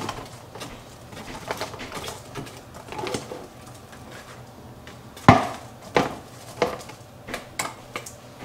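Kitchen handling sounds as tater tots are moved into a small container: light scraping and clinks of a utensil and dishware, with a sharp knock about five seconds in and a few lighter knocks after it.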